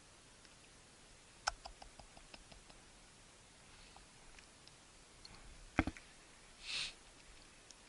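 A sharp click followed by a run of faint ticks, then a louder double knock and a short rustle, over a quiet background.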